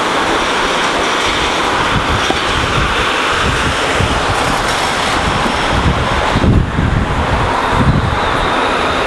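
Steady city street traffic noise as transit buses and cars drive past, with gusts of wind buffeting the microphone.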